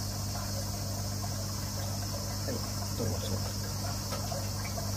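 Aquarium pump running: a steady low hum under a constant high hiss of moving water, with a few faint small knocks about halfway through.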